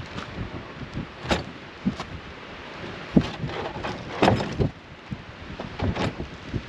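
Plywood floor panels knocking and bumping against each other and a tow sled as they are stood up and packed into it: a series of irregular wooden knocks, the loudest about four seconds in.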